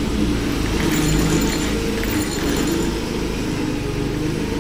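Motorcycle running along a road at night, recorded on a phone: a steady engine hum with wavering pitch under a constant rush of road and wind noise.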